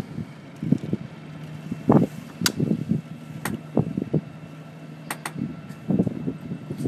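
Boat's inboard engine running steadily at low speed, a low hum, with wind buffeting the microphone in uneven gusts and a few sharp clicks.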